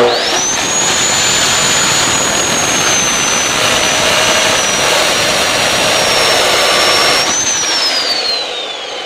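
Bosch GCO 220 abrasive cut-off saw starting with a high motor whine that climbs quickly, then its abrasive wheel grinding through a 10 mm deformed steel bar, the whine sagging slightly under the load. About seven seconds in the cut finishes: the grinding stops, the whine jumps briefly, then falls steadily as the motor is switched off and the wheel spins down.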